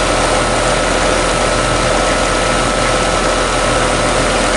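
2005 Goodman GSH13 2-ton heat pump's outdoor unit running steadily in heating mode: compressor hum and condenser fan noise with a steady whine over it. Its coil is icing up, and the owner believes the unit is low on refrigerant.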